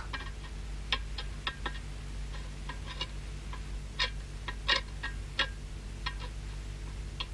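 A knife scraping burnt milk crust out of a metal pot: short, irregular scrapes and clicks, about one or two a second, over a low steady hum.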